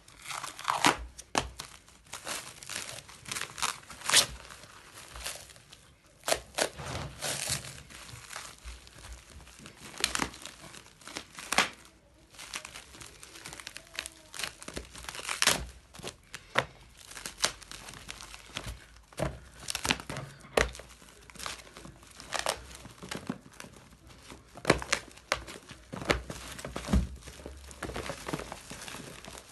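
Clear plastic wrapping crinkling and tearing as it is pulled off a block of bundled banknotes, in irregular crackling bursts.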